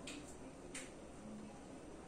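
Two faint, short ticks about two-thirds of a second apart as a smartphone is handled and its touchscreen tapped, over quiet room tone.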